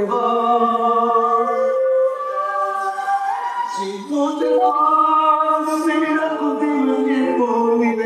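Music with several voices singing long held notes, choir-like, the chord changing every second or two.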